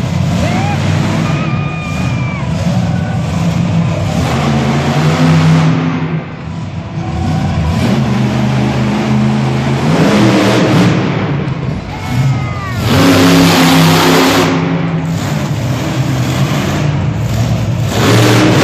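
Monster truck engine revving hard in repeated surges, the pitch rising and falling as it drives over crushed cars, loudest about ten and thirteen seconds in.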